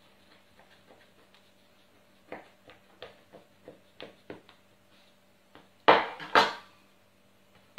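Small kitchen knife cutting through layered phyllo pastry in a metal baking pan: a run of light clicks, about three a second, as the blade meets the pan, then two loud metallic clatters about half a second apart.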